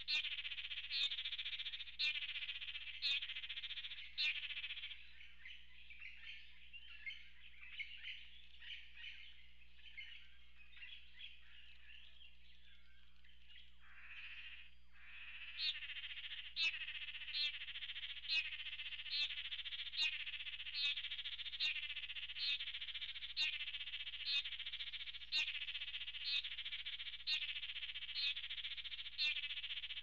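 A dense chorus of frogs calling, with one loud, sharp call repeated about once a second. The chorus thins out for about ten seconds a few seconds in, where a single call falls steeply in pitch, then the regular calling starts again.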